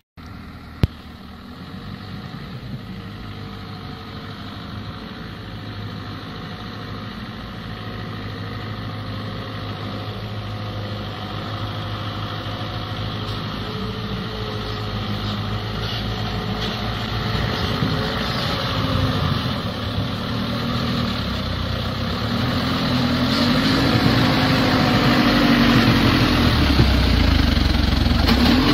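ZIL-131 logging truck's V8 petrol engine pulling the loaded truck through deep mud, growing steadily louder as it comes close, its note rising and falling in the last several seconds. A single sharp click about a second in.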